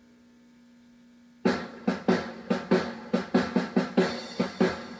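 Background music: a faint steady hum, then about a second and a half in a drum beat starts suddenly, with regular strikes about four or five a second.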